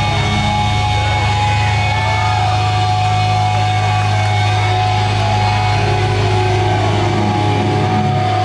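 Metalcore band playing live and loud: distorted electric guitars over a heavy, steady low end, with some yelled vocals.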